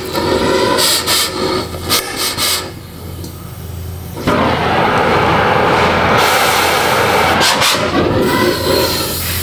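Oxy-fuel torch flame running against a rusted exhaust pipe, heating the seized inner pipe stub red-hot so it can be removed. The sound is uneven for the first few seconds, then becomes a loud, steady roar from about four seconds in.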